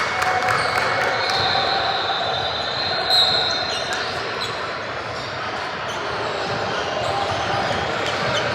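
Basketball game in a gym: a ball bouncing on the hardwood court amid crowd and player voices. A faint high squeal runs from about one to four seconds in.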